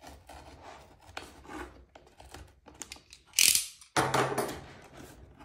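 Utility knife blade drawn along the edge of a cardboard box, slitting its plastic wrap in faint scratchy strokes, with a loud sharp hiss of the cut about three and a half seconds in. Just after, a sudden rustle of the plastic wrap that fades.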